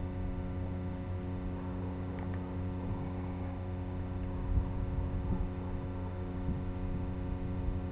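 Steady electrical hum with a stack of evenly spaced overtones, with a few soft knocks and rubs from the drone being handled; the loudest knock comes about halfway through.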